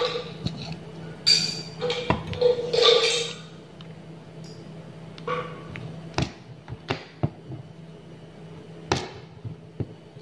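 Gold-coloured beads clinking and rattling in a small lid as an aari hook needle picks them up, then a few sharp separate clicks as the needle pierces the taut fabric stretched on the embroidery frame. A faint steady low hum runs underneath.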